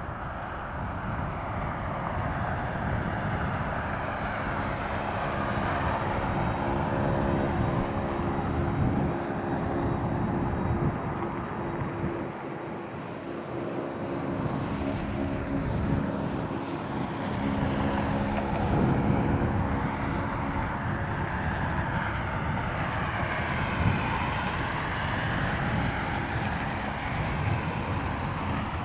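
Jet airliner engines running as an aircraft takes off or lands past the microphone: a steady hum of engine tones over a broad rushing noise that shifts as the plane moves. Wind buffets the microphone.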